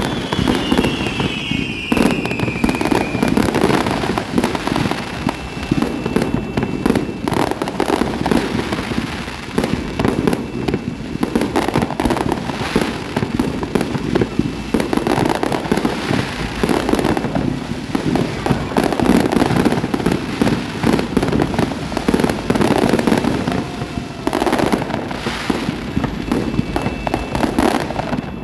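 Fireworks bursting and crackling densely and continuously, with a descending whistle near the start.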